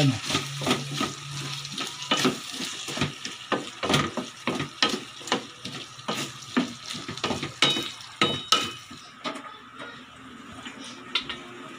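Wooden spatula stirring and tossing vegetables in a stainless steel pan, knocking against the pan about two or three times a second over the sizzle of the stir-fry. The stirring stops about nine seconds in.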